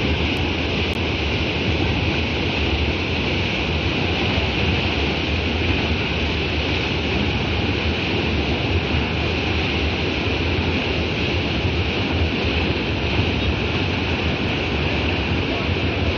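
Muddy floodwater rushing and churning in a fast torrent over a breach: a steady rush of turbulent water with a low rumble underneath.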